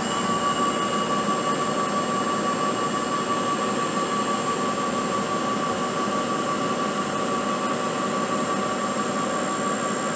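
CNC milling machine running its final undercut pass, the undercutting tool cutting a 1-inch aluminum plate die. It makes a steady machine whine with two held tones over continuous cutting noise.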